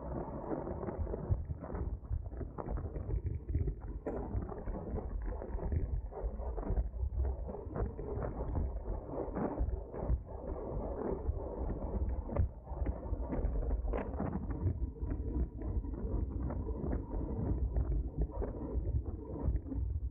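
Road racing bicycle riding at speed: a steady low rumble of wind and road with frequent irregular clicks and rattles from the bike.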